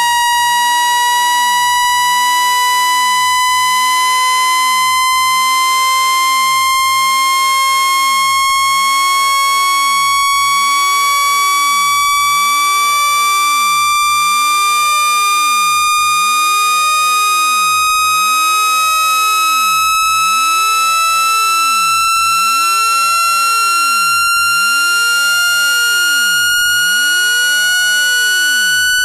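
Synthesized speaker-cleaning test tone, a loud steady electronic tone with buzzy overtones, gliding slowly and evenly upward in pitch. It is a frequency sweep meant to be played at maximum volume so the speaker's vibration shakes trapped water out of a phone speaker grill.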